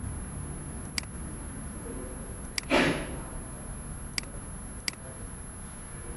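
Computer mouse clicking several times, sharp single clicks a second or so apart, over a steady low room hum. A short rushing noise, sweeping from high to low, about three seconds in is the loudest sound.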